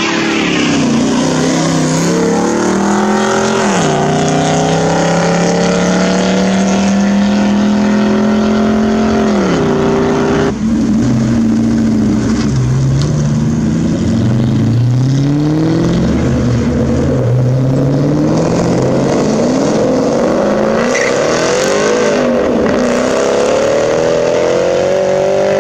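A car engine accelerating hard past, its pitch climbing and dropping twice at gear changes. After a sudden cut about ten seconds in, the supercharged V8 of a 2003–04 Mustang SVT Cobra revs in short repeated bursts as it pulls out onto the road.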